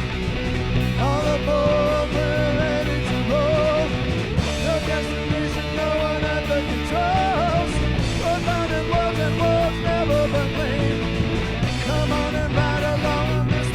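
Punk rock band playing the instrumental break of a song on electric guitars, with a lead melody line bending up and down in pitch over the steady band.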